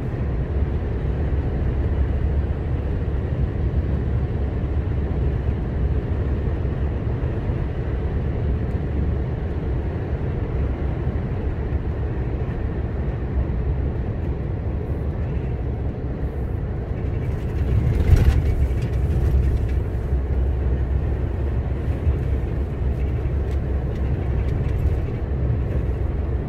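Lorry driving along the road: a steady low engine and road drone, with a brief louder rush about two-thirds of the way in.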